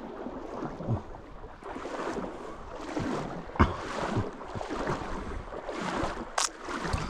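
Creek water rushing over riffles, with wind buffeting the microphone in uneven gusts and a sharp click about three and a half seconds in.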